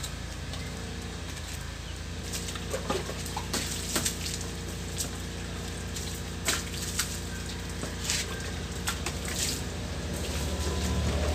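Water poured from a plastic dipper splashing onto a scooter and the wet concrete beneath it, in separate splashes starting about two seconds in, over a steady low hum.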